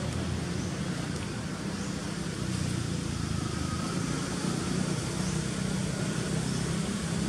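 Steady low rumble of motor-vehicle noise.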